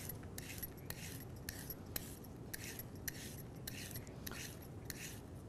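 A carrot being peeled: quiet, rhythmic scraping strokes, about two a second, with small clicks between them.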